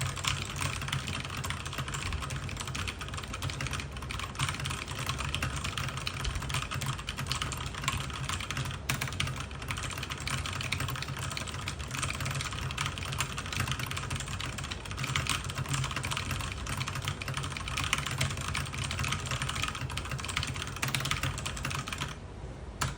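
Very fast, continuous typing on a mechanical keyboard with tactile brown switches: a dense, unbroken stream of key clacks that stops abruptly just before the end.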